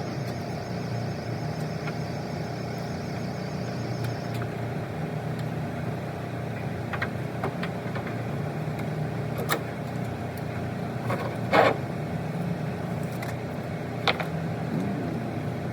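Truck engine running steadily with road noise, a few short clicks or knocks over it, the loudest about two thirds of the way through. A faint high whine stops about four seconds in.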